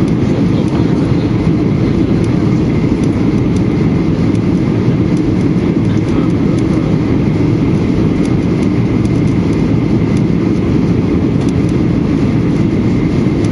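Steady cabin noise of a Boeing 737-800 heard from a passenger seat: the low, even rumble of its CFM56 engines and the airflow, with a faint high steady tone.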